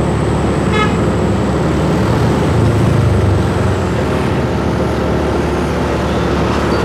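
Motorcycle riding in road traffic: steady engine and wind noise from the bike. A short horn toot sounds about a second in, and the engine grows louder for a moment near the middle.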